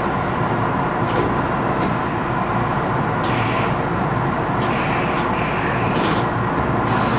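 Kintetsu electric train running, heard from the cab: a steady rumble of wheels and motors on the rails, with three short hissing bursts a little past the middle.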